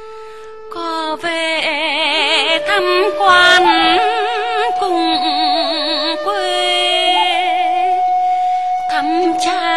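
Vietnamese lullaby (hát ru) music: a voice singing long, heavily wavering, ornamented notes over a sustained held accompaniment tone, entering about a second in after a few held instrumental tones.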